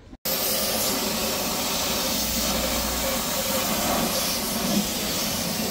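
Pressure-washer jet spraying water onto a car's windshield: a steady, loud hiss that starts abruptly just after the beginning.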